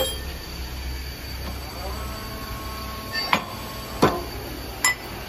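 Sharp metallic clinks and knocks, one at the start and three close together near the end, each with a short ring, as metal parts are handled at a pipe-fitting forming machine. Under them runs the machine's steady low hum, heavier in the first couple of seconds.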